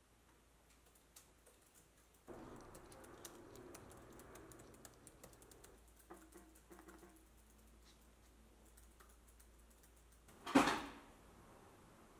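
Laptop keyboard typing: a run of light, irregular key clicks. Near the end comes a single sudden loud burst, the loudest sound, which dies away within about half a second.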